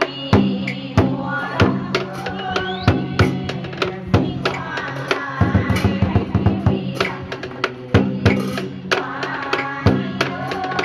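Traditional water-puppet theatre music: a steady drum beat with strikes roughly every half second, under held low tones and a melody that moves and glides higher up.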